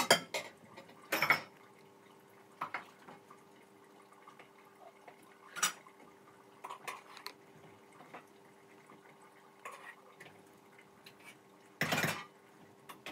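Scattered knocks and light clatter of hands working among a plastic bowl, a pot and softened cabbage leaves while rolling stuffed cabbage, with the loudest knocks about a second in, near the middle and near the end, over a faint steady hum.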